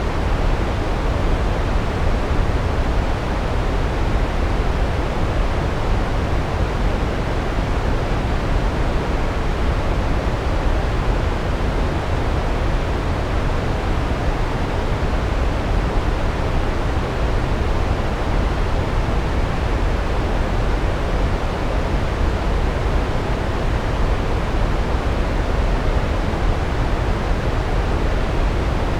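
Large waterfall with water cascading down onto rocks: a steady, deep, unbroken rush that does not change.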